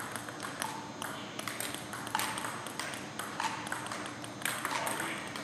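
A table tennis rally: the ball clicks sharply off the rubber bats and the table about once or twice a second, each hit ringing briefly in the echoing gymnasium.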